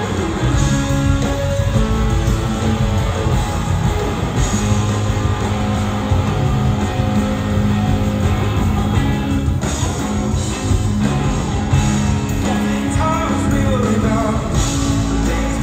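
Live rock band playing, with electric guitar, bass and drums, heard from the audience in a concert hall.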